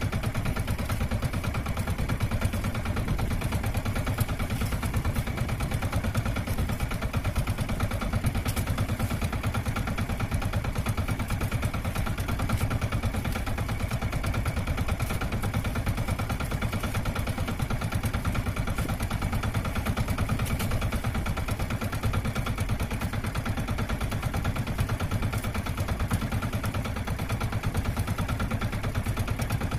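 Small outrigger fishing boat's engine running steadily at low revs, a fast even chugging with no change in speed.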